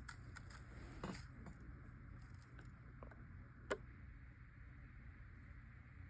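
Faint, scattered clicks and ticks of thin jewelry wire being wrapped by hand around a feather's shaft, with one sharper click a little past the middle.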